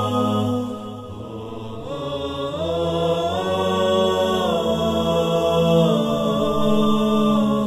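Vocal-only intro music: chanting voices with no instruments, holding long notes that slide slowly from one pitch to another.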